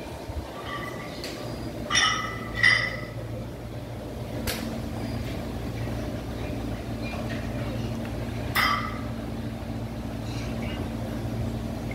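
Metal gym equipment clinking: two sharp ringing clinks about two seconds in and a third near nine seconds, over a steady low hum.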